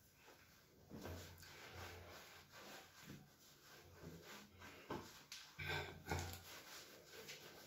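Faint rubbing and scuffing of a cotton towel as wet hands are dried on it, with a couple of louder rubs about two-thirds of the way through.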